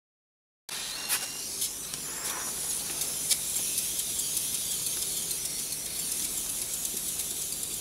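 Steady hiss of steam jetting from the three fine nozzles of a Microcosm T1B Hero's engine, a small brass aeolipile ball spinning over a methylated-spirits burner, starting abruptly just under a second in. A few light clicks sound during the first three seconds.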